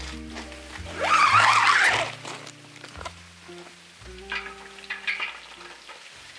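A loud rustle of tent fabric as the tent door is shut, then a few light metal clinks as a steel cover pot is set on top of a kerosene heater, over soft background music.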